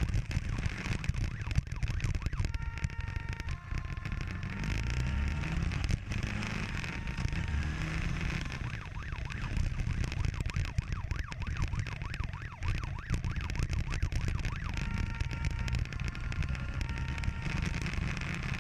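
Police motorcycle siren alternating between two tones, changing to a fast warble in the middle, heard over heavy wind rumble on the microphone from riding at speed.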